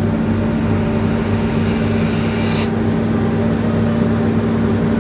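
Komatsu bulldozer's diesel engine running steadily at a constant speed, with a faint high whine that cuts off about two and a half seconds in.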